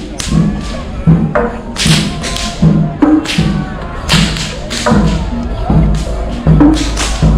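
Drums beating a steady rhythm, a deep stroke about every three-quarters of a second with sharper slaps between, under voices.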